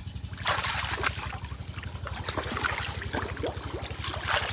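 Water splashing and trickling as hands work through shallow water, loudest about half a second in and again near the end, over a steady, rapid low chugging from an engine.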